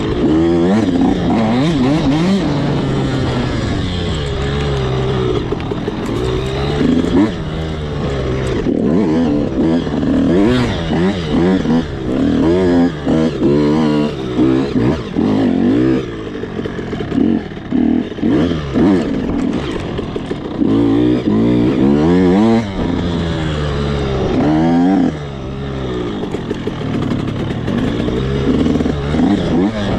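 85cc two-stroke dirt bike engine revving hard, its pitch repeatedly climbing and dropping back as the throttle is worked on and off, with a short easing-off near the end.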